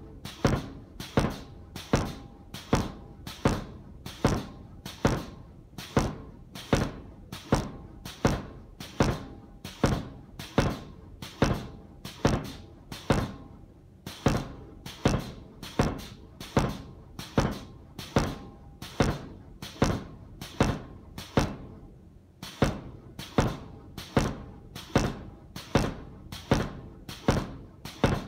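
Homemade pneumatic power hammer, with a 69 kg ram and railway-rail dies, striking a red-hot steel bar in a steady rhythm of about two blows a second. Each blow is a sharp thud with a brief ringing tail.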